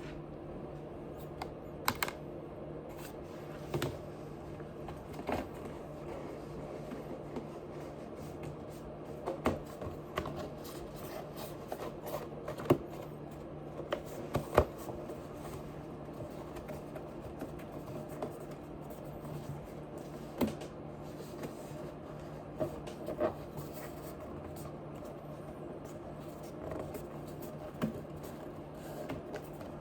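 Close-miked eating sounds: irregular soft crunches, clicks and mouth noises of chewing, some sharper than others, over a steady low hum.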